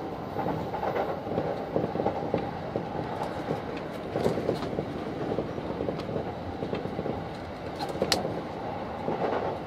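JR Saikyo Line commuter train running, heard from inside the front car: steady noise of wheels on rail with a few sharp clicks, the loudest about eight seconds in.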